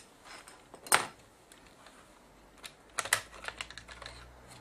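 Plastic clicks and taps as the side panel of a JVC GY-DV300 camcorder is unclipped and lifted off: one sharp click about a second in, then a quick run of clicks around three seconds in.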